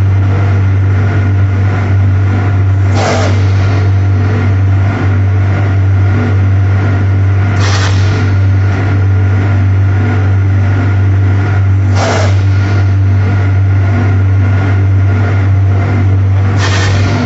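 Pulp-moulding coffee cup tray machine running: a loud, steady low hum with a short hiss about every four and a half seconds, four times.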